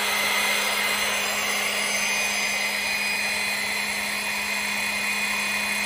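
Electric motor of a 110-volt Power Team hydraulic pump unit running steadily with a constant hum, pumping oil to a set of four 100-ton hydraulic jacks as their rams extend.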